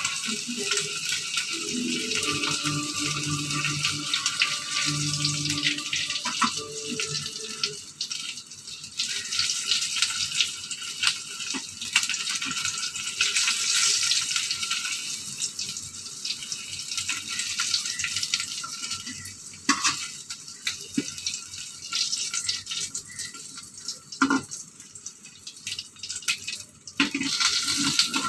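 Fish pieces shallow-frying in a little oil in a pan: a steady sizzling hiss full of small crackles, with a few sharper clicks in the second half.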